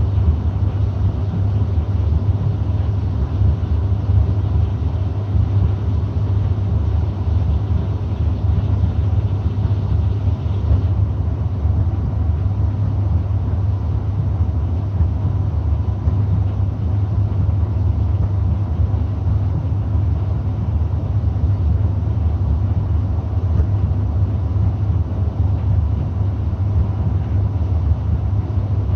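Gorenje D85F65T tumble dryer running with a steady low hum, which its owner finds abnormal in a new machine. About eleven seconds in, a higher, hissier part of the sound cuts out, leaving the low hum.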